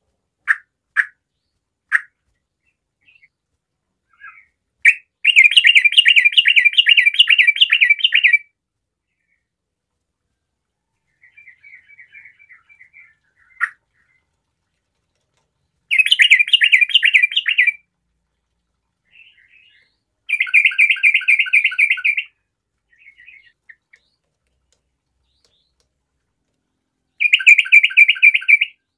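Yellow-vented bulbul singing in four loud bouts of rapid chattering notes, each two to three seconds long, with single short calls and quieter twitters between them.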